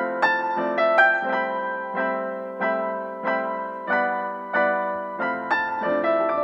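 Background music: a gentle piano tune, its notes or chords struck about every two-thirds of a second, each ringing and fading before the next.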